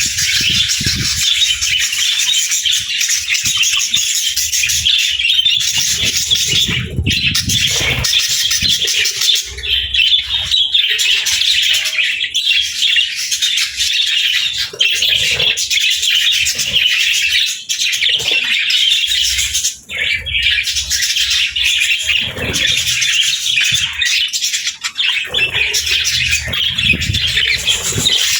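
A flock of budgerigars (parakeets) chattering and chirping without a break, with a few low thumps at intervals.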